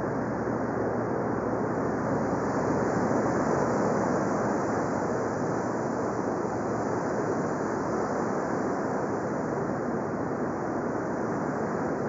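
Bose Sleepbuds 2 "Boardwalk" noise-masking sleep sound: a steady, even rushing of ocean surf.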